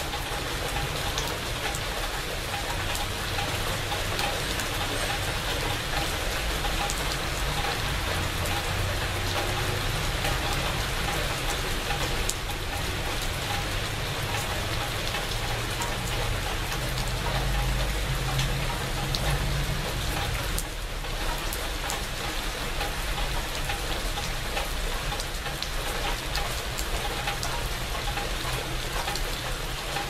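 Steady rain falling on leafy shrubs: a continuous patter with single drops ticking now and then, and a low rumble underneath.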